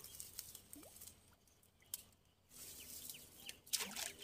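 Quiet, faint small handling sounds at the water's edge, then a brief noisy splash of water near the end as a hand goes down into the canal.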